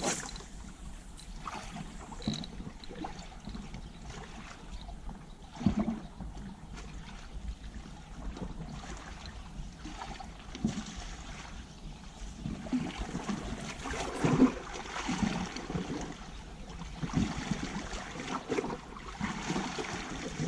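Small waves lapping and slapping against rocks at the water's edge, in an uneven wash with sudden louder splashes, the biggest about six and fourteen seconds in. A sharp click comes right at the start.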